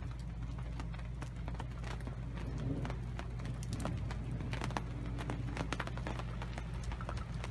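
Irregular taps and clicks of rain dripping, over a steady low hum.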